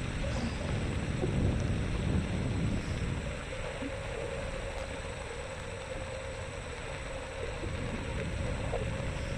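Xiaomi M365 electric scooter riding along: wind buffeting the microphone and tyre rumble, with a thin steady whine coming in about three and a half seconds in.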